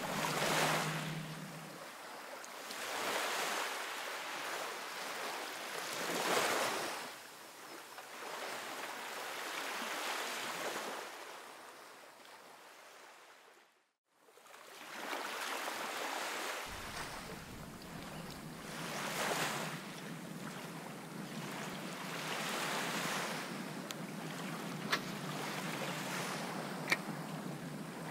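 Shallow seawater lapping and sloshing in slow swells every few seconds, with wind on the microphone. The sound drops to silence for a moment about halfway through, and two sharp ticks come near the end.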